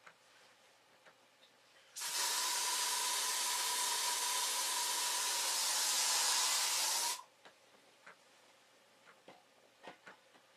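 A loud, steady hiss with a thin steady tone in it, starting suddenly about two seconds in and cutting off abruptly about five seconds later.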